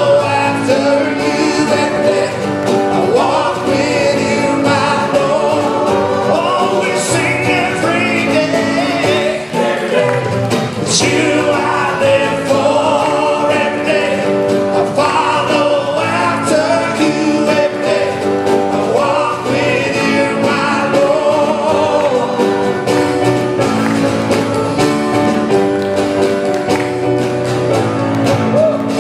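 Live church worship band performing a song: lead and backing singers over drums, guitar and keyboard.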